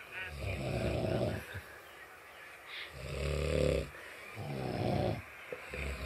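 People snoring in their sleep: three long snores of about a second each, with another starting near the end.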